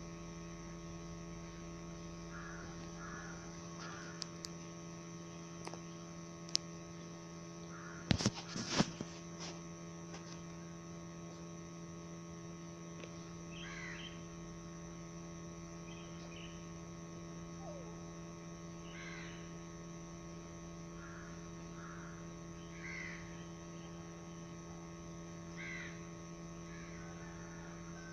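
A steady electrical hum made of several fixed tones, with faint short high chirps every few seconds and a brief cluster of sharp knocks about eight seconds in.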